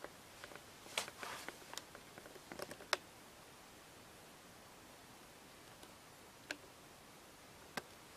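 Faint small clicks and knocks with a little rustle: a cluster in the first three seconds, then two single clicks near the end, over quiet room tone in a small wood-panelled cabin.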